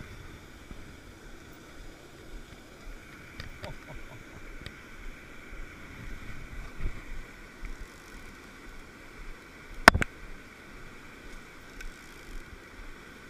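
Steady rush of a mountain stream running over a small rocky cascade, with one sharp knock about ten seconds in and a few faint ticks.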